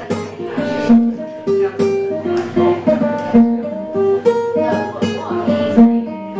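Nylon-string classical guitar played solo in a steady rhythm, picked melody notes mixed with sharp strums.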